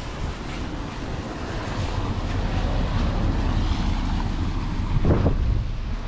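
Wind buffeting the microphone in a fluttering low rumble over a steady outdoor hiss, with one short knock about five seconds in.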